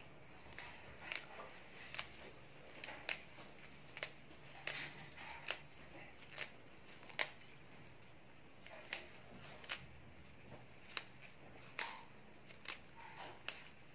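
Scissors snipping fresh mint leaves: irregular sharp clicks, roughly one or two a second, some with a brief high metallic ring.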